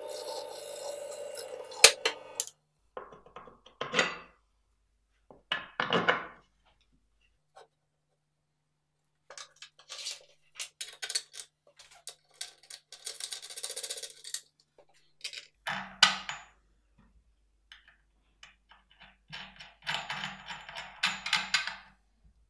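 Benchtop drill press motor running as its bit drills through a plywood board, stopping about two and a half seconds in. After that come scattered knocks, metal clinks and scrapes as steel bolts, washers and nuts are handled and fitted to fasten the plywood to the drill press's metal table.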